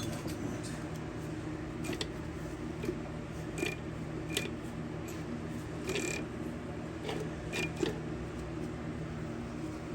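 Hand tools clicking and tapping against metal engine parts, scattered single knocks, several with a brief high ring, as the connecting-rod caps of a small-block Chevy 350 are worked loose. A steady low hum runs underneath.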